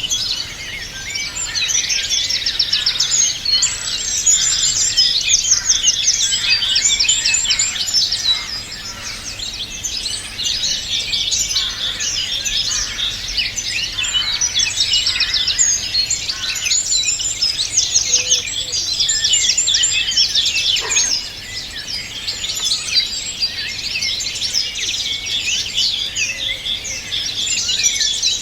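Many songbirds singing at once: a dense, unbroken chorus of high chirps and rapid trills overlapping one another.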